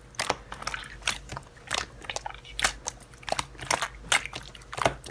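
Irregular clicking of keys being typed, about two to three sharp clicks a second.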